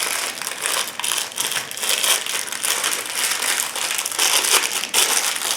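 Packaging crinkling and crackling continuously as a folded multi-tool is pushed back into it.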